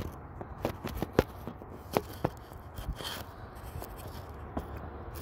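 Phone handling noise: fingers rubbing and knocking on a phone held at arm's length as it is turned and repositioned. There are irregular sharp clicks, several in the first second and a few more spaced out after, over a low rustle.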